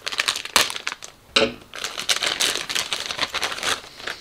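Clear plastic parts bag crinkling and rustling in the hand as it is handled and opened, in a dense run of crackles with a short pause about a second in.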